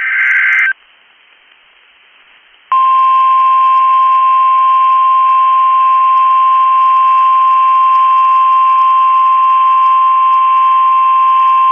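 A short burst of digital data warble from a weather radio, then faint hiss. About three seconds in, the NOAA Weather Radio 1050 Hz warning alarm tone starts: one steady, loud tone held for about nine seconds. It is the alert signal that comes before a warning message.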